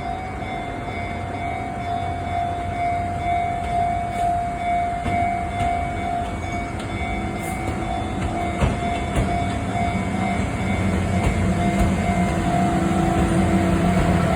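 Japanese level-crossing alarm ringing in a steady repeating tone, over the low rumble of a rail-grinding train that grows louder as it slowly approaches and passes the crossing.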